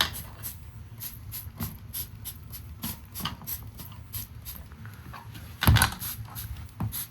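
Spray bottle squirted again and again onto the wall gas furnace's fittings in a leak check, short hissing spurts a few times a second over a low steady hum. One loud thump about six seconds in.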